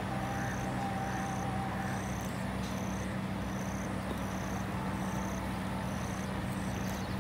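Steady low machine-like hum, with a short high chirp repeating evenly about every three quarters of a second over it.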